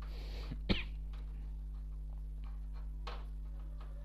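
Steady low electrical hum, broken about a second in by one sharp click and a fainter tap later on, as the hard disk's data cable and the parts around it are handled.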